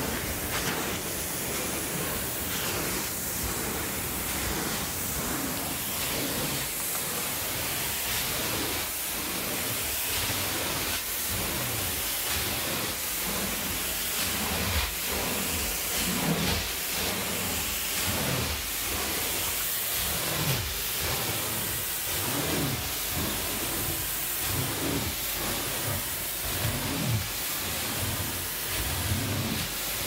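Steam carpet cleaner's wand running: a steady loud hiss as it sprays and draws across the carpet, with irregular low thumps underneath.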